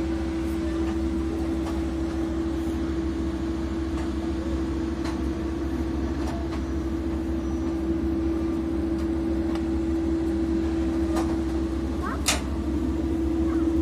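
Steady machinery hum during aircraft refuelling: a constant mid-pitched tone over a low rumble, with a few faint clicks and one sharper click about twelve seconds in.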